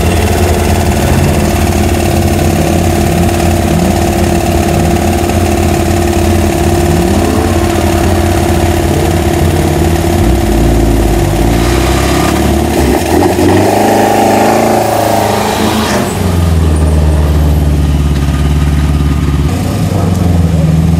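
Racing car engines idling in a slow-moving queue, with revs rising and falling in short throttle blips, the busiest stretch a little after halfway. After a cut, the Mercedes 190 E 2.5-16 Evo II's four-cylinder racing engine idles steadily at the start line.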